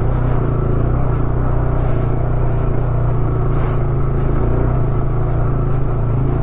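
Motorcycle engine running at a steady pitch while the bike is ridden along.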